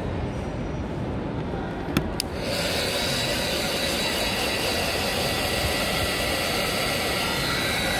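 Two sharp clicks, then a small electric blower switches on about two and a half seconds in and runs steadily with a whirring hiss.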